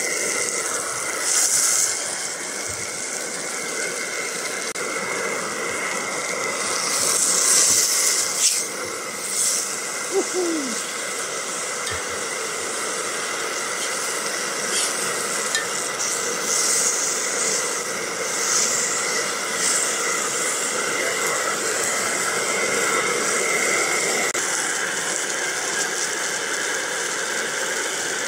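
A large rump steak and mushrooms sizzling steadily on a hot cast iron pan, with a few louder flares of sizzle along the way.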